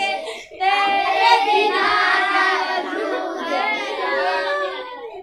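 Boys singing a Hindi film song together without instruments, with a short break about half a second in.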